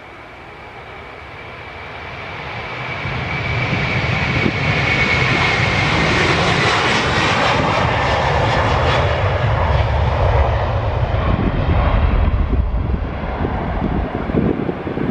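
KLM Airbus A330's twin jet engines at takeoff thrust during the takeoff roll. The noise swells over the first few seconds, and a high fan whine slides down in pitch as the jet passes. A deep rumble carries on as it lifts off and climbs away.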